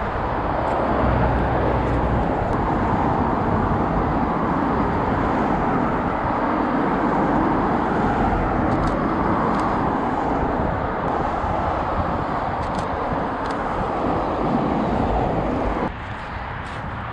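Steady rush of road traffic, which drops suddenly quieter near the end, with a few faint ticks.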